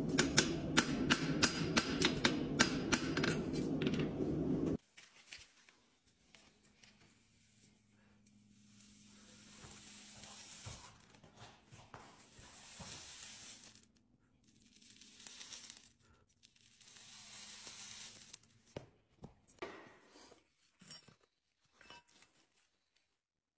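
A hammer strikes a horseshoe on a steel anvil in a quick regular series over a steady low hum, cutting off after about five seconds. Then a hot horseshoe is pressed against a horse's hoof, and the burning horn sizzles in four hissing swells, each lasting a second or more. A few light clicks follow near the end.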